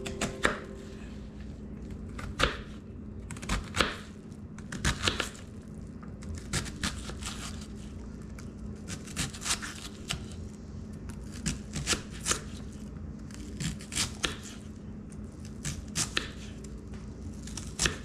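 Kitchen knife chopping an onion on a wooden cutting board: irregular sharp knocks of the blade striking the board, some in quick runs, over a faint steady low hum.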